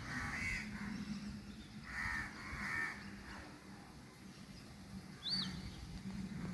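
Crows cawing: three harsh caws in the first three seconds. A smaller bird gives one short high chirp about five seconds in.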